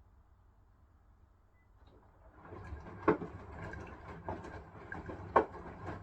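Hisense washing machine on its wool cycle: after a quiet pause the drum starts turning about two seconds in, with water and laundry swishing and a sharp knock roughly once a second.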